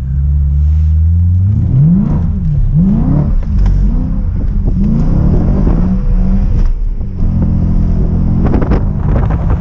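BMW E92 M3's V8 engine heard from inside the cabin, loud, with the revs climbing and dropping several times as it is driven hard, then holding a steady drone near the end.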